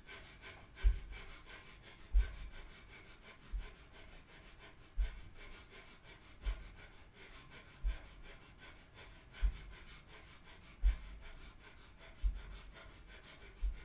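Breath of fire: fast, rhythmic, forceful breathing through the nose, several breaths a second, with a low thump about every second and a half.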